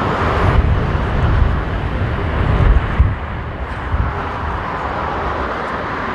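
Jet airliner engine noise mixed with strong gusty wind buffeting the microphone, a heavy fluctuating low rumble under an even rushing noise.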